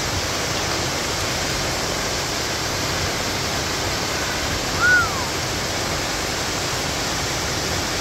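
Steady rush of a waterfall plunging into a pool. About halfway through, a single short call briefly rises and falls in pitch over the water noise.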